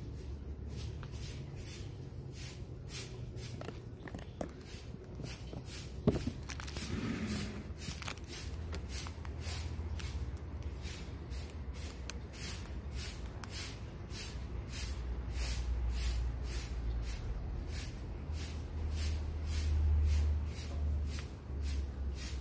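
Leather slipper being hand-stitched, with faint rustling and squeaking as needle and thread are pulled through the leather and a sharp click about six seconds in. Throughout, a steady high-pitched ticking about twice a second, over a low rumble that swells in the second half.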